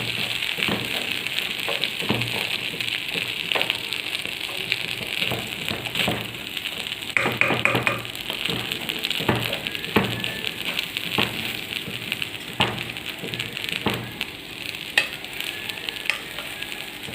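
Washed rice and browned vermicelli frying in ghee in a pot with a steady sizzle, while a spoon stirs it and scrapes the pot about once a second.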